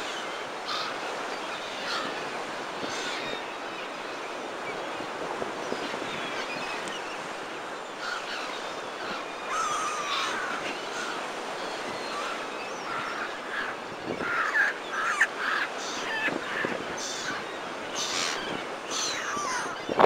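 Gulls calling repeatedly, more often in the second half, over the steady rush of rough surf breaking against the seafront.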